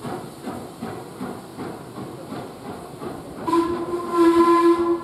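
Steam locomotive moving off slowly, its exhaust chuffing at about two to three beats a second. About three and a half seconds in, a steam whistle sounds one steady note, held for about a second and a half and louder than the chuffing.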